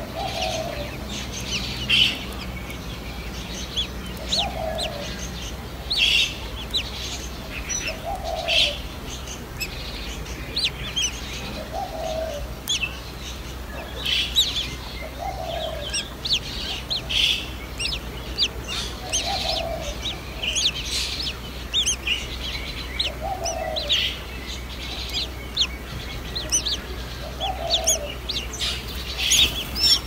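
Birds chirping: frequent short, high chirps, with a lower, slightly rising call repeated about every four seconds.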